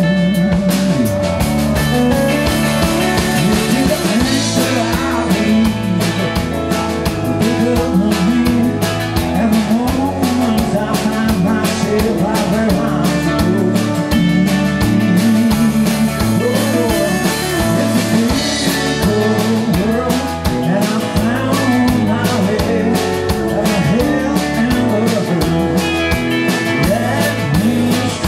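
Live band playing a rock song with electric guitars, acoustic guitar and drum kit, with a steady beat throughout.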